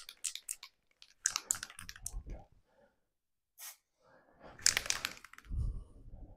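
Can of Tesa extra-strong spray adhesive spitting in short crackly spurts with a couple of brief hisses, the strongest about two-thirds through, followed by a few dull knocks. The can is spurting instead of misting: it is not atomising the glue properly.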